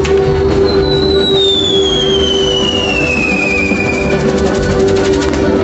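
Music with drums plays over fireworks from a torito de lumbre. A single whistle falls slowly in pitch for about three seconds, starting about a second in, with a sharp crack at the start and a patter of crackling near the end.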